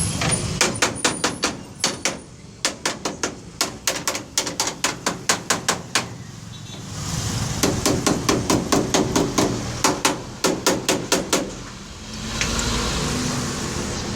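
Hammer blows on a tricycle's body during collision repair, coming in rapid runs of about four strikes a second with short pauses between runs.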